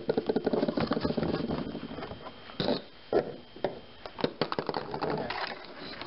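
Plastic clamshell cover of an RV air conditioner creaking and clicking as its two halves are pried apart by hand. It opens with a run of rapid crackling, followed by a handful of separate sharp snaps as the locking tabs come free.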